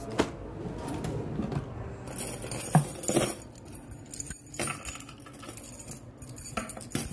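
Light metallic jingling and clinking, like keys jangling, starting about two seconds in, over the rustle and bump of a phone being carried while walking.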